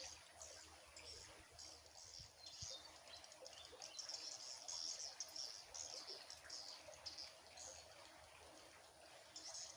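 Faint outdoor ambience of high-pitched chirping in quick, uneven bursts, busiest around the middle, over a faint low rumble.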